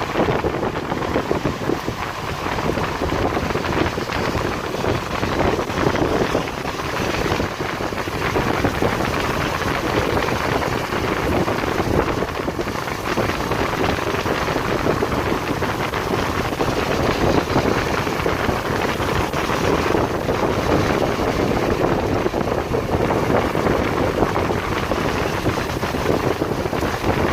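Heavy rain falling in a steady, dense hiss, with wind on the microphone.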